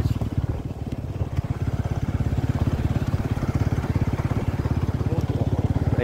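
Motorcycle engine running while riding, with a rapid, even beat of exhaust pulses that is a little quieter for about a second near the start, then steady.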